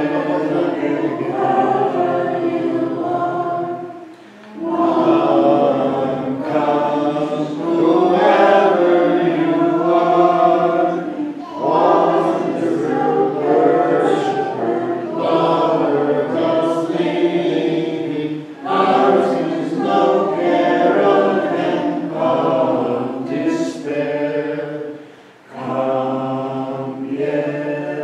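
Small congregation of mixed voices singing a round together, with short breaths between phrases about four and twenty-five seconds in.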